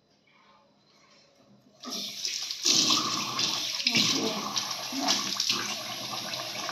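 A bathroom tap is turned on about two seconds in, and water runs steadily from it into a washbasin.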